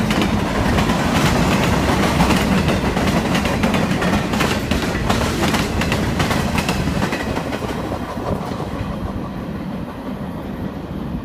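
Freight train boxcars rolling past, their wheels clacking over the rail joints. The sound fades over the last few seconds as the end of the train moves away.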